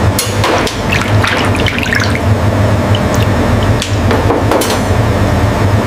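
Kitchen work sounds: scattered knocks and clinks with water sounds over a steady low hum. The liquid sounds are busiest in the first two seconds.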